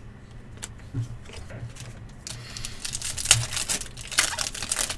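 Trading card pack wrapper and cards being handled: a few light clicks, then from about halfway a dense run of crinkling, tearing rustles as a pack is opened.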